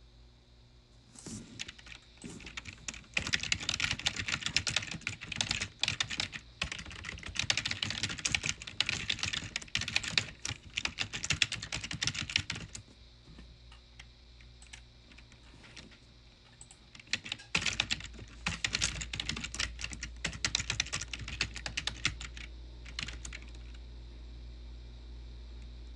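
Typing on a computer keyboard: rapid key clicks in two long stretches, the second starting a few seconds after the first stops.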